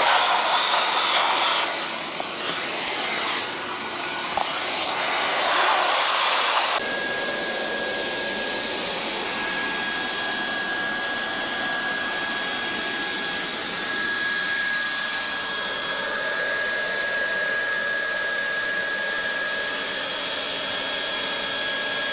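Hot-air plastic welding gun (Leister Triac BT) blowing steadily, its blower sending out a continuous rush of hot air. About seven seconds in the sound changes abruptly to a slightly quieter steady rush with a thin, steady high tone.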